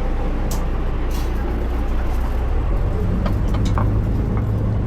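A party fishing boat's engines running with a steady low drone, the note shifting slightly higher about three seconds in.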